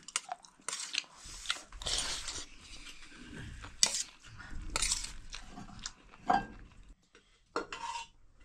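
Dishes and eating utensils clinking and scraping in a string of irregular short knocks and rustles.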